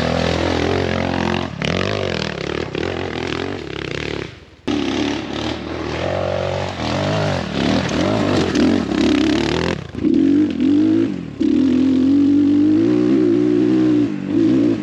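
Dirt bike engines revving and running under load on a trail, in several short clips cut together: the sound breaks off and changes suddenly a few times, with the pitch rising and falling as the throttle opens and closes.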